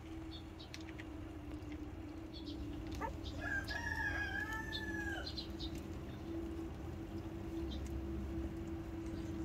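A rooster crows once in the background, starting about three seconds in and lasting about two seconds. A steady hum runs underneath throughout.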